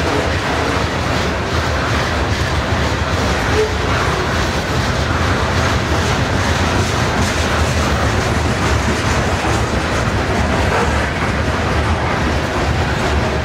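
A loaded grain train of covered hopper cars rolls past: a steady rumble of steel wheels on rail with faint, repeated clicks.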